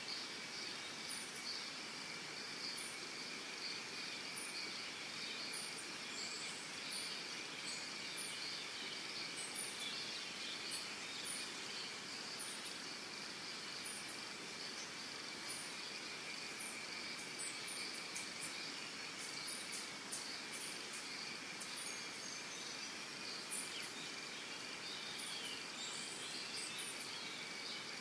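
Evening insect chorus in grass and trees: a steady shrill drone on two high pitches, over short very high chirps repeating about once a second. A bird gives a few brief sliding calls in the second half.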